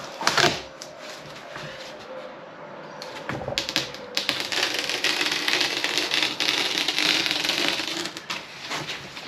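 Utility knife drawn repeatedly along a marked cut line in a panel: a scratchy rasping with many fine clicks, loudest in the second half, after a short knock near the start.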